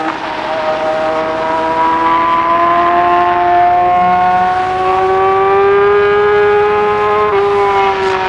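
A 2020 Yamaha R6's 599 cc inline-four engine under load at speed, its pitch climbing slowly as the bike pulls in one gear. There is a brief dip about seven seconds in, then the pitch falls slowly. Wind rush runs beneath it.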